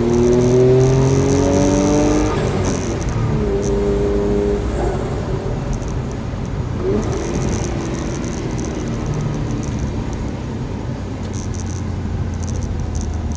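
Suzuki Carry turbo kei truck's K6A three-cylinder engine pulling under acceleration, its pitch rising for the first two seconds or so, then running at a steadier speed. Faint high clicking comes and goes throughout.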